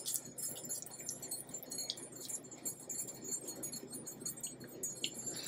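Silicone spatula stirring a sticky honey and soy sauce in a glass bowl: faint wet scraping with scattered light clinks against the glass.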